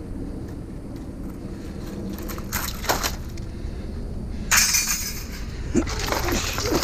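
Scrap being pulled apart and handled: a short crash, then a louder sharp crash and a few clattering knocks, over a steady low rumble.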